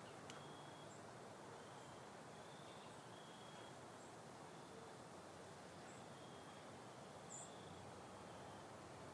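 Near silence: faint outdoor background with scattered short, high-pitched chirps from small creatures.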